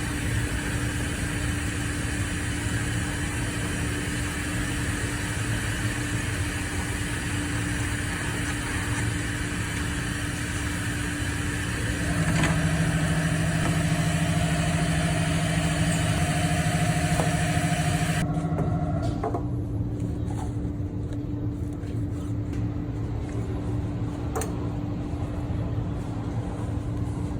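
Car engine idling steadily. About twelve seconds in, a louder droning tone joins for roughly seven seconds, then stops.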